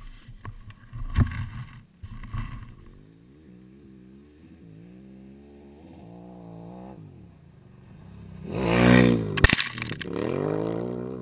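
Big-trail adventure motorcycle engines running and revving on a dirt practice course, their pitch rising and falling. About two-thirds of the way through, one bike passes close, the loudest moment, its engine note swinging up and then down as it goes by. A knock sounds about a second in.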